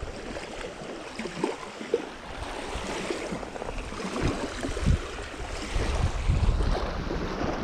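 Small waves washing onto a sandy lakeshore, with a few soft knocks. About two-thirds of the way in, wind starts buffeting the microphone.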